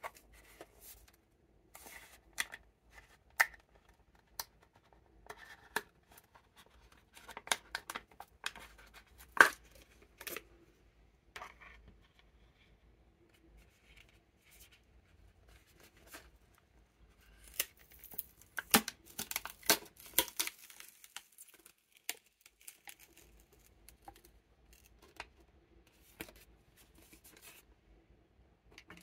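Pringles can being opened by hand: scattered clicks and crinkles as the plastic lid is handled and taken off, then a dense burst of crinkling and tearing about eighteen seconds in as the foil seal is peeled back from the rim.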